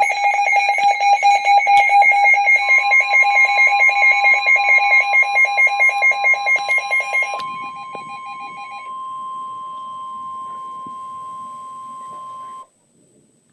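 NOAA Weather Radio alert: loud, rapidly pulsing electronic alarm beeps sound for about seven and a half seconds, then fade away. About two and a half seconds in, the broadcast's steady 1050 Hz warning alarm tone starts, signalling a warning. It runs on alone after the beeping and cuts off abruptly about a second before the end.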